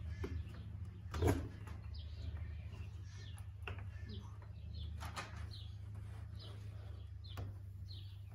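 Scattered knocks and scrapes of a motorhome's cab-over window being worked loose from its opening after its gasket has been pulled, the loudest knock about a second in. Birds chirp repeatedly and a steady low hum runs underneath.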